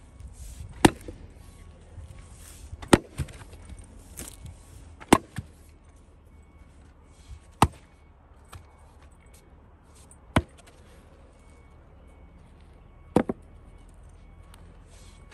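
Walters axe splitting firewood rounds on a chopping block: six sharp chops, irregularly spaced about two to three seconds apart, some followed by a lighter knock as the split piece falls or the blade is worked free.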